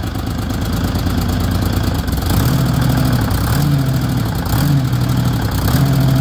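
Dynahoe 160 backhoe's engine running steadily. From about two seconds in, its low note swells and fades roughly once a second as the hydraulic levers are worked.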